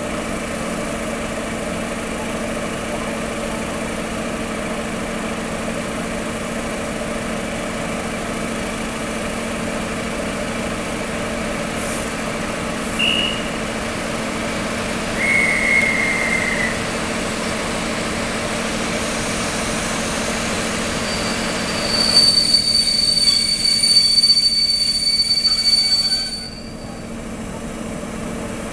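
SU42 diesel locomotive idling steadily while standing with its train. Two short high squeaks come around the middle, and near the end a louder hissing squeal with a high whistle lasts about four seconds and cuts off suddenly.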